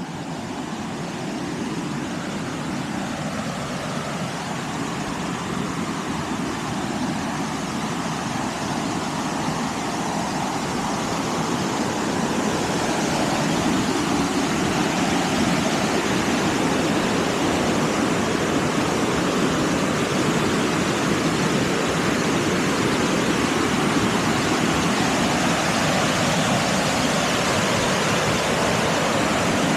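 Steady rush of water, a rain-swollen stream or waterfall, growing louder over the first dozen seconds and then holding level.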